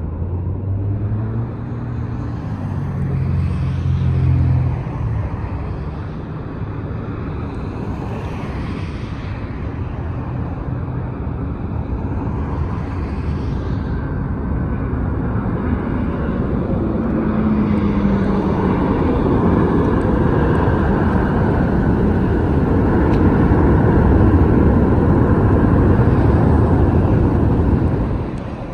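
Jet engines of a Southwest Airlines Boeing 737-700 on the runway: a steady rumble that grows louder over the second half.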